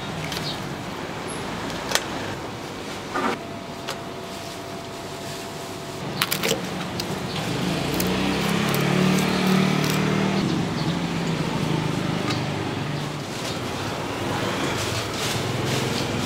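Steady street traffic noise, with a vehicle's low rumble swelling about halfway through and a few sharp metallic clinks scattered throughout.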